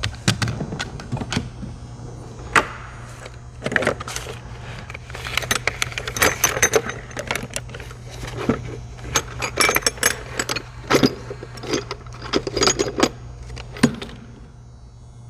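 Metal hand tools clinking and rattling as someone rummages through a toolbox to find an impact swivel socket: many irregular clinks, over a steady low hum.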